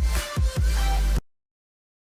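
Electronic dance music with a heavy bass line and sliding synth notes that cuts off abruptly a little over a second in, leaving silence.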